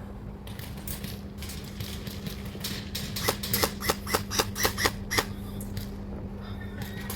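Airsoft gun firing a quick string of about eight semi-automatic shots, heard as sharp clicks roughly four a second, about three seconds in.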